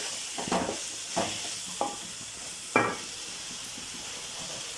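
Chopped vegetables and spice powders frying in oil in a pan with a steady sizzle, while a spoon stirs and scrapes against the pan in four short strokes, the loudest about three seconds in.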